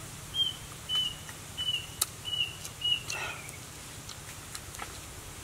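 A bird calling: a run of five short, clear whistled notes about half a second apart, each dipping slightly in pitch, with a brief falling note after the last. Faint scattered clicks sound in between.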